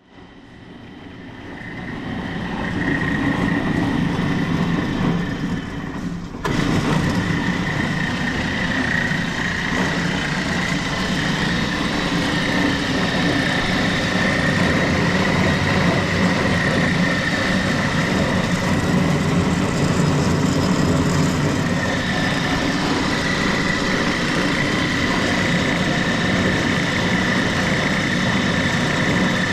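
Johnson band saw switched on, its motor and blade coming up to speed over the first few seconds, then running steadily with a constant high whine over a low hum. A sudden change in the sound about six seconds in.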